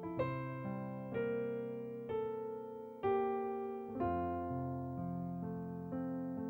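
Slow, gentle piano music: sustained chords struck about once a second.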